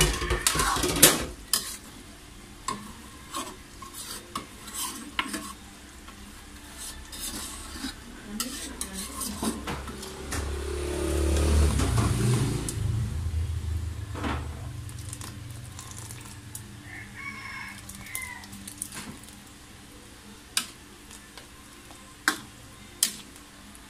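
Metal ladle stirring a wok of simmering sauce, clicking and scraping against the aluminium pan. A louder low rumble swells about ten seconds in and fades over the next few seconds.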